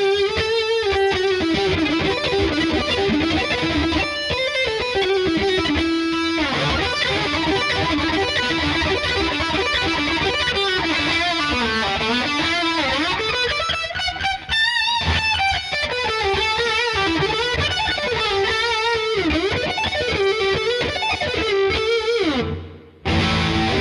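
Yamaha ERG121C solid-body electric guitar played lead through a distorted tone: sustained notes with wide vibrato and string bends, and a burst of fast notes about two-thirds of the way through. The sound briefly drops out near the end before a last held note.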